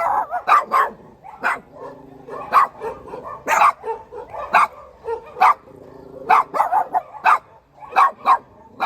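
A dog barking repeatedly: about fifteen short, sharp barks at an uneven pace, some coming in quick pairs.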